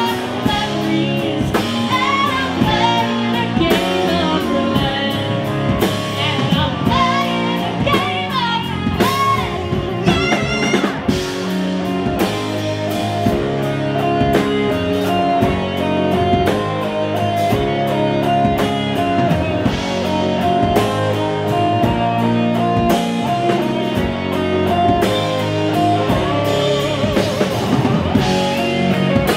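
Live rock band playing: a woman's lead vocal over electric guitars, bass, keyboards and drums. Partway through the singing drops out and an electric guitar carries the lead over the band.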